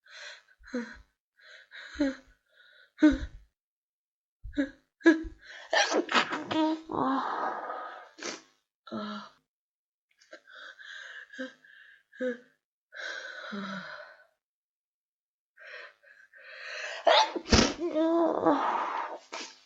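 A woman with a head cold gasping and sniffing in build-ups to sneezes, with several wet sneezes among them. The longest, voiced ones come about six seconds in and again near the end.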